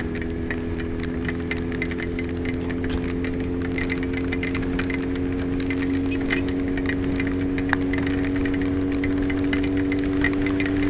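Honda CBX 750 inline-four engine running at a steady cruising speed, its pitch held even, with scattered light ticks from the rain. The engine gradually gets a little louder.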